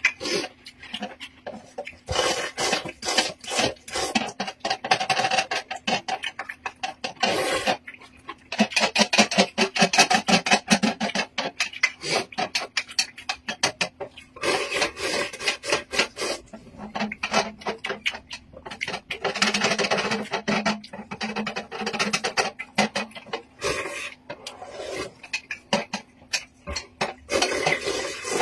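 Close-up eating sounds: noodles slurped and chewed straight from a stainless steel pan, with chopsticks scraping and clicking against the metal as the pan is tipped up to the mouth. Rapid, rasping slurps come in long runs broken by short pauses.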